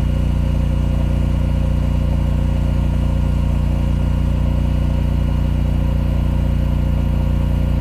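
Competing residential standby generator's engine running under load at 3600 RPM, heard from seven meters: a steady, even drone with a strong low hum.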